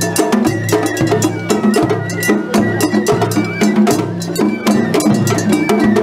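Japanese festival float music (hayashi): fast, continuous drum strokes with a metallic hand-gong clanging, over a low steady drone and short high piping notes.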